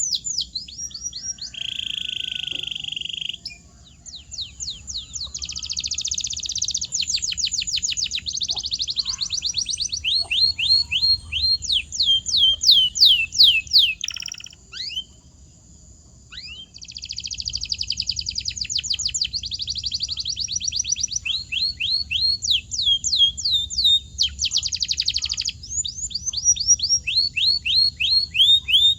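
Canary singing: long rolling trills of quick falling notes, repeated many times a second. A brief held buzzy note comes about two seconds in, and the song pauses briefly twice.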